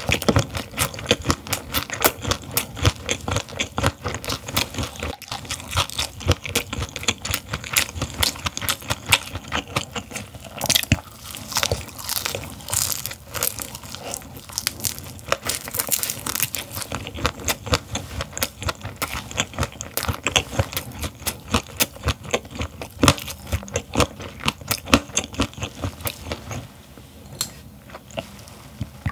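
Close-miked crunching and chewing of a whole gizzard shad, bones and all: rapid sharp crunches several times a second, thinning out near the end.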